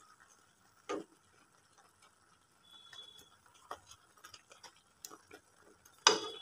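Wooden spoon stirring vegetables simmering in a non-stick pan: a single knock about a second in, then scattered light taps and clicks. A sudden loud clatter of kitchen utensils near the end.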